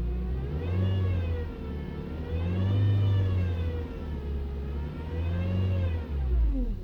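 2011 Honda Accord's power steering pump whining over the running engine, the whine rising and falling in pitch several times and dropping away near the end. The whine comes from a leaking power steering inlet hose O-ring that has let the fluid run low.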